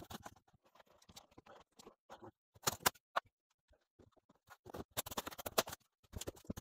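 Scratching, scraping and small clicks of a flat hand tool prying N scale track and turnouts loose from a layout's cork roadbed, with short, louder scratchy bursts about two and a half seconds in and again around five seconds in.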